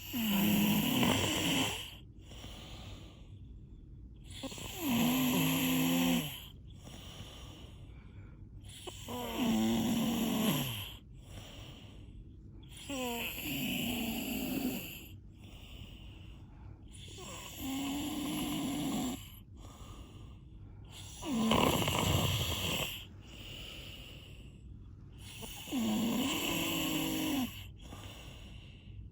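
A person snoring in a steady rhythm: seven loud, rattling snores about four seconds apart, each lasting a second and a half to two seconds, with quieter breaths between.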